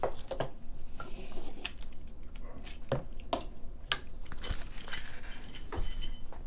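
Small metal clicks and light jingling of a quick-detach sling swivel and web-sling hardware as the swivel is worked off the old web sling, with a brief cluster of metallic jingles about five seconds in.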